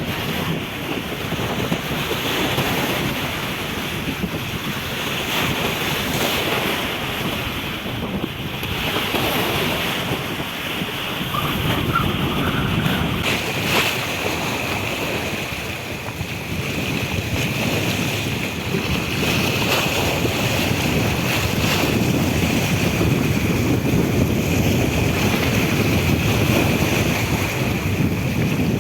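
Wind buffeting the microphone over the wash of sea water, a steady rushing noise. A faint steady high whine joins about halfway through.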